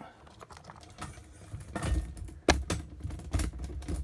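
Small clicks and knocks of a circuit board and its cables being handled and pulled out of a plastic robot-arm housing, with a few low thuds; the sharpest knock comes about two and a half seconds in.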